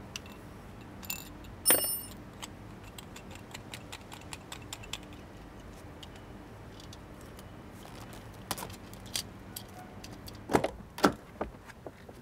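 Small metallic clinks, clicks and knocks of objects being handled. A bright ringing metal strike comes about two seconds in, and a cluster of louder knocks near the end.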